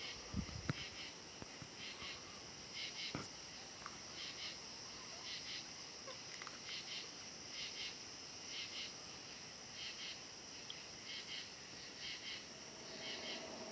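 Insects chirping in short high-pitched pulses, one to two a second, over a continuous high drone. A couple of low thumps sound about half a second in.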